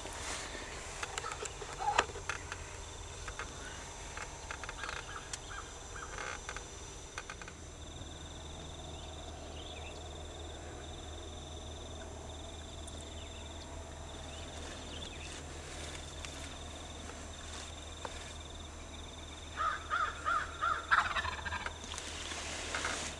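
Osceola wild turkey gobbling: a quick rattling run of notes about twenty seconds in, then a second, denser burst right after.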